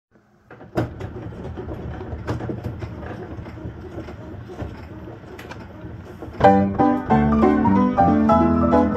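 Player piano running with a noisy mechanical rumble and scattered clicks while the blank leader of the roll passes; about six and a half seconds in, the piano suddenly starts playing the punched roll, a lively one-step with many quick notes.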